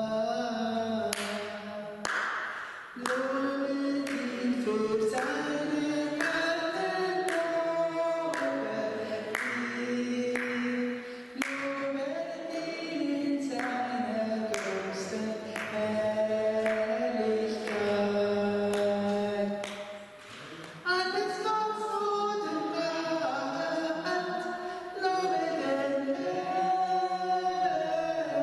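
A woman singing unaccompanied into a hand microphone, the melody running in long phrases broken by short pauses.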